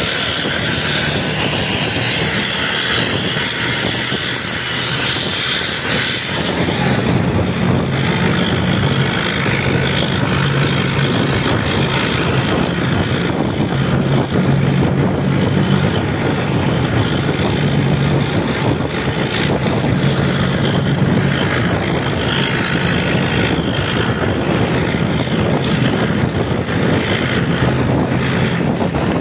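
Diesel engine and exhaust of an intercity bus running hard at speed, the exhaust's deep growl ('ngorok'). A steady low engine note strengthens about six seconds in and holds, over loud road and wind noise.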